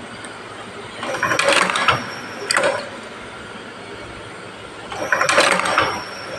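Semi-automatic gyoza machine running through two forming cycles about four seconds apart as it fills and folds dumplings. Each cycle is a mechanical clatter of about a second, then a short second clatter half a second later.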